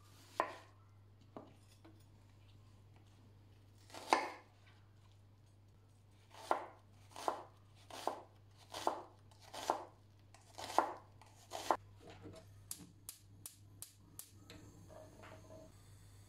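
Chef's knife chopping an onion on a wooden cutting board, a cut a little more often than once a second, each ending in a knock on the wood. Near the end comes a quick run of sharp clicks from a gas hob's igniter as the burner knob is turned. A low steady hum lies underneath.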